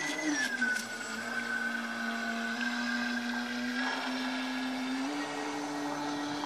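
Motors of radio-controlled model boats whining on the water. The pitch drops shortly after the start, holds lower, then steps back up about five seconds in as the throttle changes.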